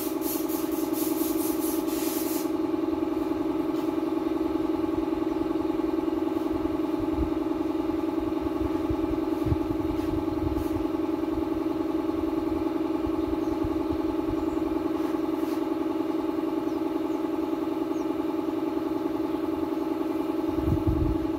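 A motor running with a steady, unchanging hum. Short, rapid hisses from a spray paint can come over it in the first two seconds or so.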